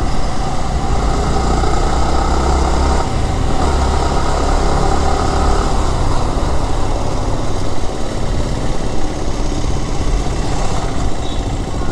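Yamaha R15 sport bike's single-cylinder engine running under way, heard from the rider's seat over steady wind and road noise; its note holds for the first few seconds, dips briefly about three seconds in, then fades back into the road noise as the bike slows.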